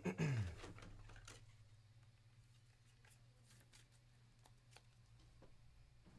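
Hands handling a sports card and a plastic card holder: a short burst of rustle and clatter at the start, then faint scattered clicks and ticks over a low steady hum.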